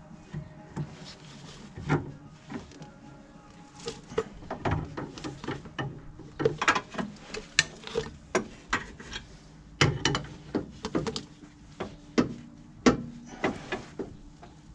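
Metal tool clicking and knocking on the inner track rod end as it is tightened onto the steering rack: irregular sharp clicks, a few at first and then many from about four seconds in.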